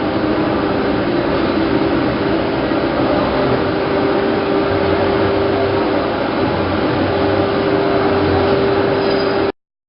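Plastic bag cutting machine running steadily, a loud even mechanical noise with a constant hum; it cuts off suddenly near the end.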